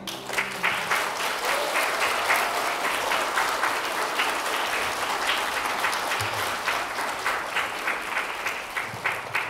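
An audience of schoolchildren applauding, many hands clapping steadily.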